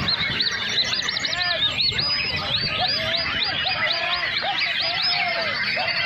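A chorus of many caged songbirds singing at once, a dense, unbroken stream of quick, repeated high chirps and whistles overlapping one another.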